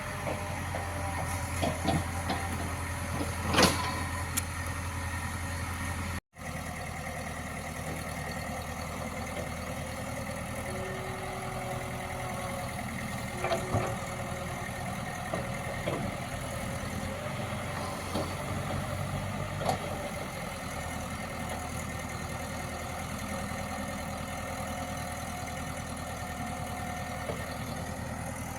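Diesel engine of heavy construction machinery running steadily, with a few sharp knocks and clanks. The sound drops out for a moment about six seconds in.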